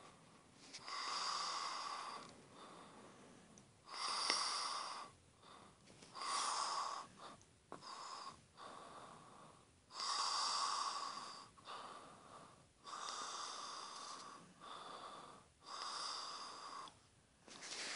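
Heavy breathing and snoring of a sleeper: noisy breaths in and out, each about a second long, one every second or two with short pauses between.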